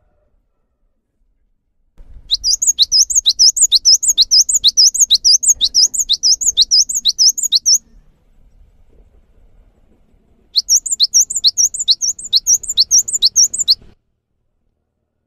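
Cinereous tit singing two long bouts of rapid, evenly repeated high sweeping notes, about three a second. The first bout starts about two seconds in and lasts some five seconds. After a short pause, a second, shorter bout comes near the end.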